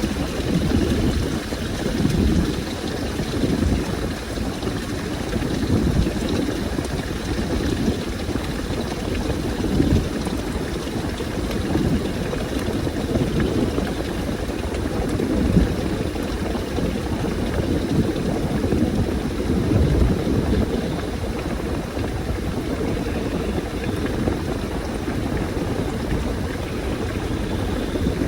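Washing machine mid-cycle, water sloshing as the laundry is churned round, swelling and easing about every two seconds over a steady low running sound.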